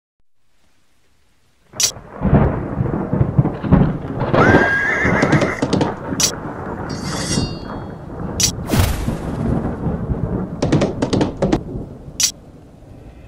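Storm and horse sound effects: rain and thunder start about two seconds in, a horse whinnies, and several sharp cracks come through the storm.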